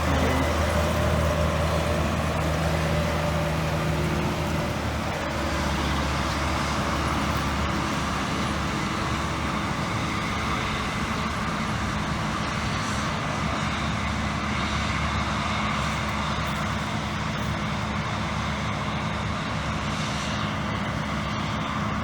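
Large diesel farm harvest machinery running steadily, its engine note dropping slightly about four to five seconds in.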